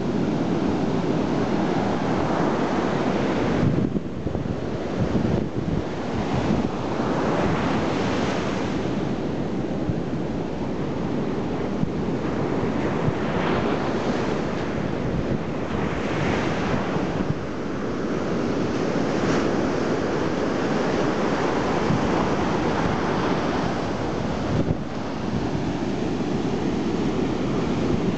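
Ocean surf breaking and washing up the sand, a steady rush that swells and eases as each wave comes in. Wind buffets the microphone.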